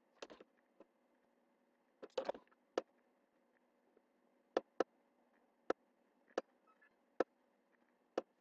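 Computer mouse button clicks: about ten sharp, separate clicks at irregular intervals, a few in quick pairs, over a faint steady hum.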